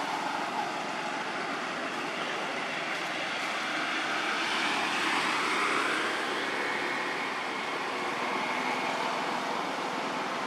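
Steady outdoor background noise, an even hiss-like rush with no distinct events in it.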